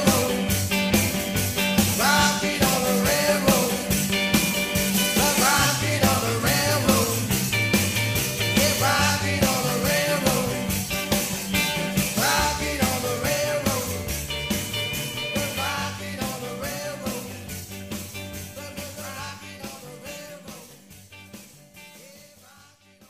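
Rock and roll song with a singer, a steady drum beat and a moving bass line, fading out over the last several seconds.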